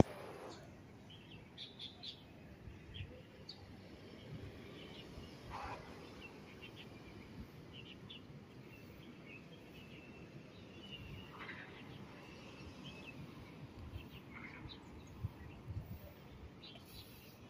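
Faint, scattered chirps of small birds over a steady low hum of distant city traffic. There is a single bump right at the start.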